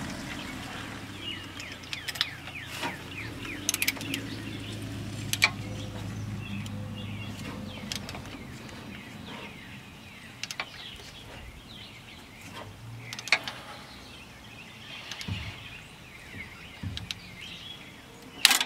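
Scattered metallic clicks and clinks of a ratchet wrench turning a stud extractor on a seized, heated stud, with birds chirping throughout and a low hum over the first half. Near the end comes one loud, sharp snap as the stud breaks off.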